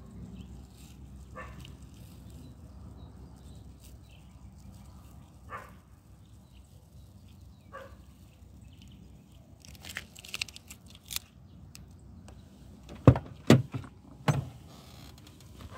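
Masking tape being peeled off the fresh spray paint of a car's wheel arch, with a few soft ticks as it lifts. Near the end comes a quick run of clicks, then three loud knocks.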